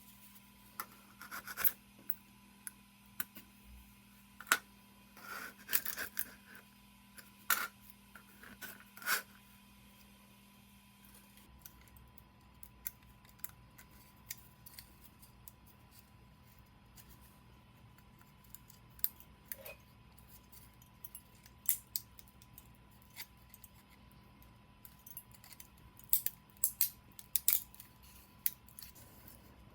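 Sporadic small clicks, snips and scrapes of hand work on plastic toy parts, bunched together at the start and again near the end with a quieter stretch in between.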